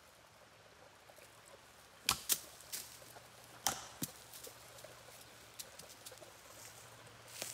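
Wood knocks: a dead stick struck against a standing tree trunk, two sharp knocks in quick succession about two seconds in, a lighter one after, then another pair about a second and a half later. The knocks are a call tap, the tree knocking that Bigfoot hunters use as a signal, with a faint stream running underneath.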